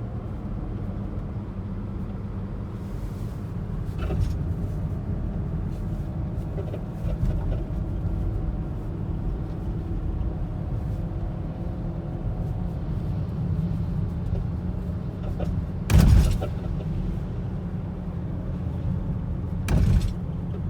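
Volvo XC90 on the move, with a steady low road rumble and a few sharp clunks from the front passenger-side suspension, the loudest about three-quarters of the way in. The owner takes the clunks for a busted suspension (strut) mount on that side.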